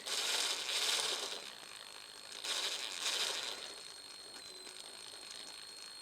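A hand drill ratcheting in two short bursts of rapid clicks, each about a second long, the first at the start and the second about two and a half seconds in.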